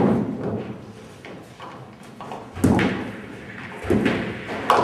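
Nine-pin bowling balls thudding onto the lanes and rolling, with heavy knocks about two and a half seconds in, again a little after, and a sharp crack near the end.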